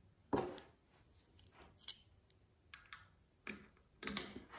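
A handful of sharp metallic clicks and knocks, uneven in spacing, as a small ratchet wrench is handled and set onto the brass bonnet of an oxygen regulator; the loudest knock comes about a third of a second in, with a quick cluster near the end.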